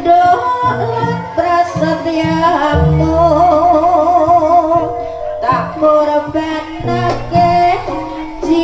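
Live jaranan accompaniment from a Javanese gamelan ensemble: drum strokes and a deep sustained low tone under pitched melody lines, with a long melody line wavering in strong vibrato from about three to five seconds in.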